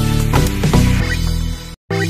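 Background electronic dance music with a steady beat; it cuts out to silence for a moment near the end, then resumes.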